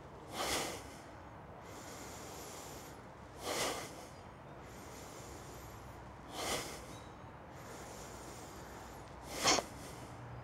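A person breathing out hard four times, about every three seconds, with softer, longer in-breaths between. The breathing is paced to shoulder raises and drops in a qigong warm-up: in on the shrug, out as the shoulders fall. The last out-breath is the loudest.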